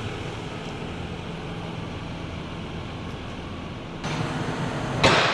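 Farm diesel engine running steadily with a low hum. About four seconds in the noise rises, and near the end a loud, brief rush of noise cuts across it.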